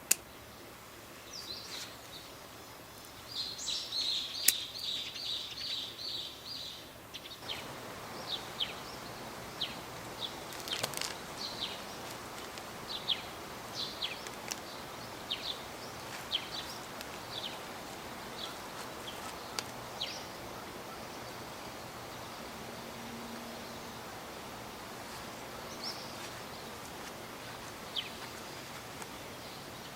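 Wild birds calling: a rapid trill for a few seconds, then scattered short, high chirps. A steady hiss comes in abruptly about seven seconds in and runs under the chirps, with a sharp click at the very start.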